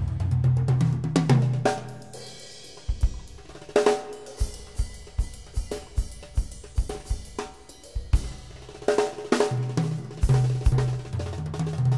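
Instrumental test-track music on drum kit and deep bass: the bass line drops out about two seconds in, leaving kick drum beats about twice a second with snare and cymbal hits, and the bass comes back near the end.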